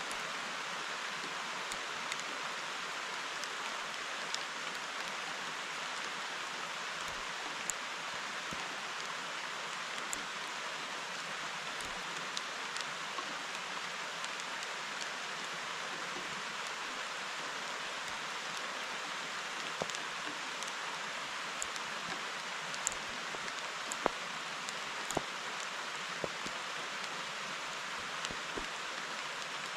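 Steady rain falling, an even hiss with scattered sharper drop taps.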